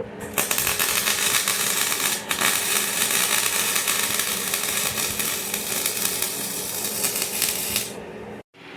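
Electric welding arc crackling and hissing steadily for about seven and a half seconds, with a brief break about two seconds in, then cutting off.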